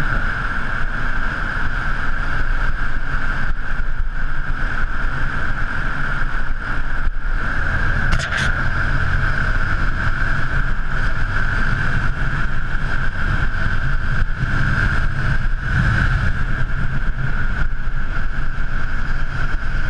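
Yamaha YZF-R125's single-cylinder 125 cc engine running at a steady cruising speed through a road tunnel, mixed with wind on the microphone and road rumble.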